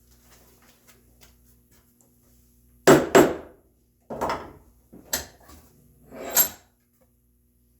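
Wooden knocks as red oak frame pieces are worked at a mortise-and-tenon joint: faint small taps at first, then a pair of sharp knocks about three seconds in and three more over the next few seconds.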